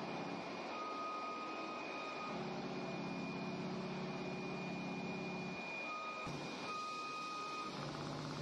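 Richpeace CNC sewing and perforating machine running at speed: a fast, dense needle chatter under a steady high whine, with a second, lower whine that cuts in and out several times as the head moves.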